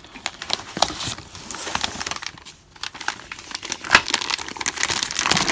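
Plastic vacuum storage bag crinkling as it is pulled out of its box and unfolded, with a brief lull about halfway.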